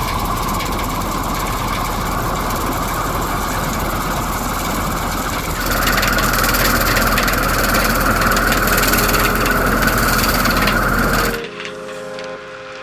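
Engine of hedge-trimming machinery running steadily, getting louder about halfway through, then cutting off abruptly. Music follows near the end.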